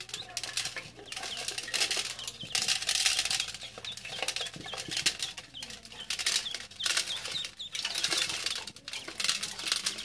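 Ducklings peeping, many short high chirps over and over, while feed pellets are dropped among them into a metal basin and patter and scratch against the metal as the ducklings scramble and peck.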